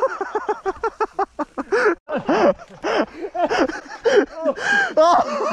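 People laughing hard in rapid, breathless bursts, one short rising-and-falling cry after another, a few per second.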